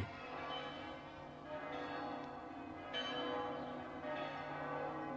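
Church bells ringing a slow peal, fairly quiet, with a new bell struck about every second and a half and the earlier strikes still ringing on beneath it.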